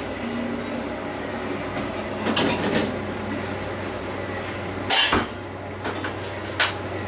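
Kitchen handling noises: a few short knocks and clicks from a spoon, plastic bowl and tray being worked at a counter while dumplings are filled. The loudest knock comes about five seconds in, over a steady low hum.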